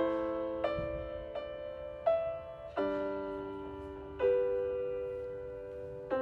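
Slow, gentle piano music: single notes and chords struck about once a second, each ringing and then fading.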